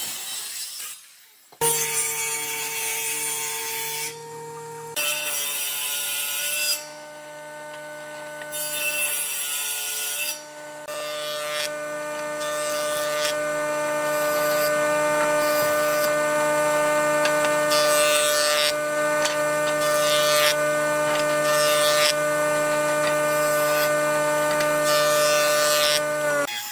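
Power woodworking machines cutting wood: a handheld circular saw ripping a hardwood slab, then a jointer planing boards. A steady motor hum runs throughout, with repeated louder stretches as the blade or cutterhead bites into the wood.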